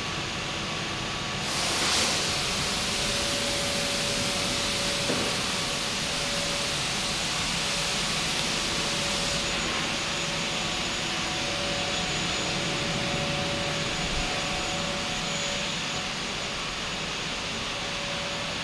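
Workshop noise of CNC wheel lathes running: a steady machine hum with a faint whine, overlaid by a strong hiss that starts about a second and a half in and stops about nine seconds in.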